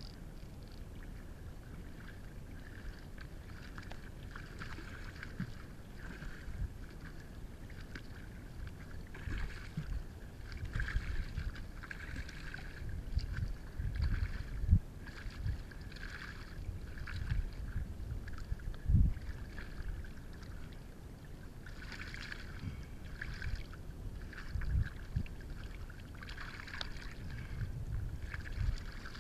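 Shallow water splashing and sloshing in uneven surges as a hooked bonefish is played and brought in at the angler's feet, with low thumps of wind or handling on the microphone.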